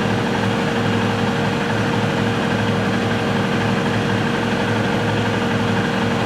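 Steady mechanical hum of a running machine, an even drone with a constant low pitch that does not change.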